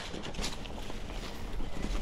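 Mountain bike rolling along a dirt forest trail: steady tyre noise over dry leaf litter with many small clicks and rattles from the bike.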